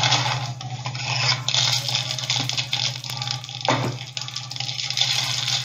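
Rustling and crinkling of toy packaging (cardboard, paper and plastic wrap) being handled and pulled out of a box, over a steady low hum.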